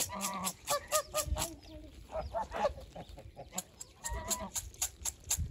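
Domestic geese honking in short calls, the clearest at the start and about four seconds in, among a flock of chickens and geese feeding on bare ground. A steady run of quick sharp taps comes from the birds feeding right by the microphone.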